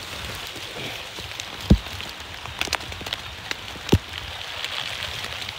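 Steady rain falling, with a few sharp knocks; the two loudest come just under two seconds in and about four seconds in.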